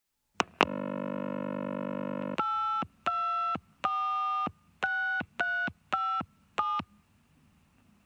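Two quick clicks, then a steady telephone dial tone for nearly two seconds. The dial tone cuts off as seven touch-tone (DTMF) digits are dialled, each a short beep of two tones together, unevenly spaced.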